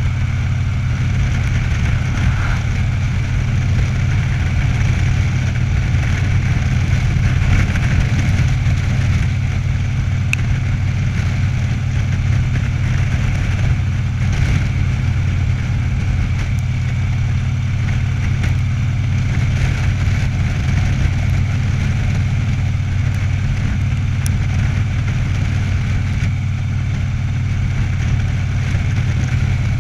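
Cruiser motorcycle engine running steadily at a constant cruising speed, heard from the rider's seat, with wind and road rush over it.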